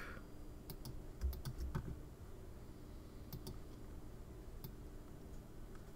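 Faint, scattered clicks of a computer keyboard and mouse, a few single and a few in quick pairs, as the Command key is held and points are clicked.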